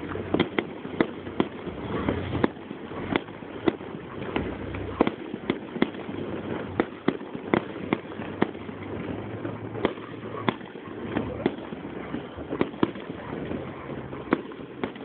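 Fireworks display: a rapid, irregular string of sharp bangs and pops, about two or three a second, over a continuous background rumble.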